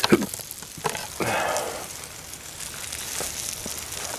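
Salmon in a foil packet sizzling on a grate over glowing charcoal briquettes, a steady hiss with scattered small crackles. A brief louder noise comes about a second in.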